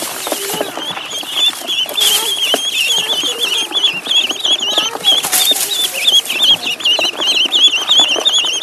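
Ducklings peeping: many quick, high, wavering peeps overlap in an unbroken chorus.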